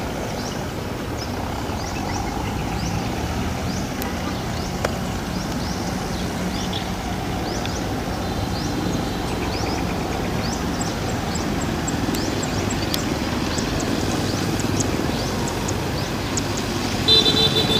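Several tractors running at working speed while towing small round straw balers, a steady mixed engine and baler drone. Short high chirps come in around the middle, and a brief higher tone starts near the end.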